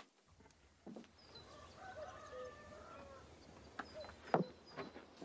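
A rooster crows with one drawn-out call of about two seconds, while small birds chirp high above it. A few sharp knocks follow near the end.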